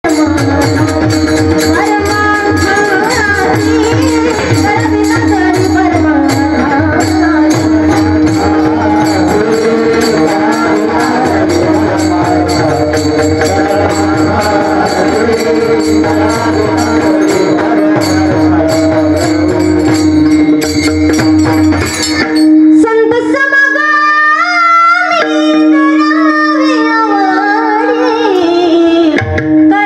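Kirtan music: voices singing to a fast beat of taal hand cymbals and a drum over a steady drone. About two thirds of the way through, the cymbals and drum stop and a woman sings a long, ornamented solo line with a wavering pitch over the drone.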